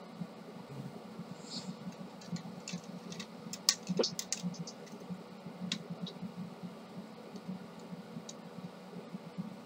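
Small plastic clicks and taps from a laser printer drum unit being handled and fitted together. There is a cluster of sharp clicks about four seconds in and a couple of single ones later, over a faint low hum.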